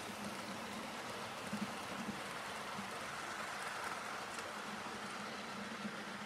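Model train running past on its track: a steady rumble of wheels on rail with a low motor hum, swelling as the coaches pass closest about halfway through.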